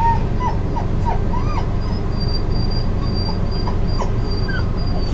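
Beagle–boxer mix dog whimpering: a run of short, falling whines, most of them in the first second and a half.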